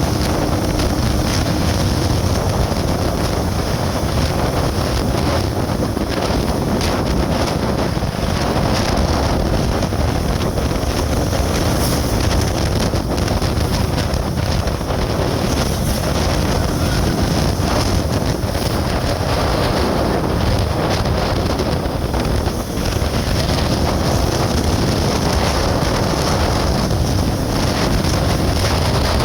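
Steady rush of wind on the microphone over the road noise of a moving vehicle, unbroken throughout.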